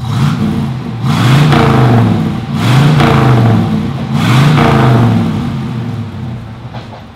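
A 6.6-litre (400 cubic inch) Pontiac V8 revved through its dual exhaust with chrome splitter tips: three throttle blips, each rising and falling in about a second, with a deep rumble, then dropping back toward idle near the end.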